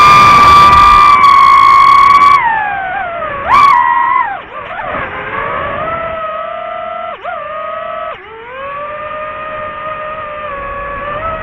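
DJI FPV quadcopter's motors and propellers whining, the pitch rising and falling with the throttle. Loud and high for the first two seconds or so, a brief surge about three and a half seconds in, then a lower, steadier whine with two quick dips around seven and eight seconds in.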